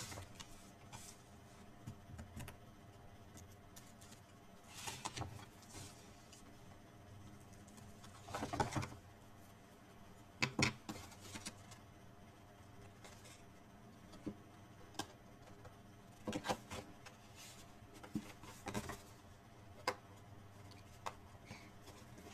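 Quiet handling of cardstock and double-sided adhesive tape: scattered short rustles, taps and scrapes of paper as the tape's protective backing is peeled away and the box pieces are fitted together.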